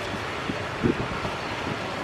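Jet engines of a widebody airliner at takeoff thrust as it climbs out: a steady rushing noise. Wind buffets the microphone in brief low thumps, one about a second in.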